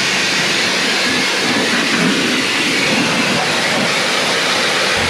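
Karcher K2 electric pressure washer jetting plain water onto a car engine bay: a loud, steady hiss of spray.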